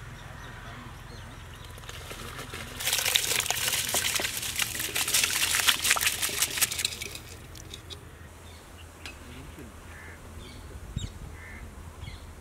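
Soaked basmati rice poured from a bowl into a large pot of boiling water: a loud rush of falling grains and splashing water, full of small ticks, starting about three seconds in and lasting about four seconds before dying away.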